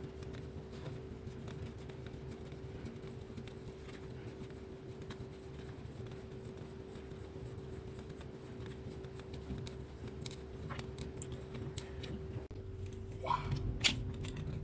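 Pen scratching on paper as it is drawn around the holes of a plastic Spirograph-style ruler, with a faint steady hum underneath. Over the last few seconds come a few sharp clicks and a louder knock as the plastic ruler is handled.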